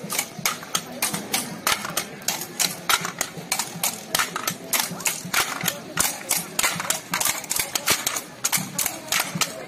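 Many hand-held sticks struck together by a group of marchers, a rapid, fairly steady clacking of about four strikes a second.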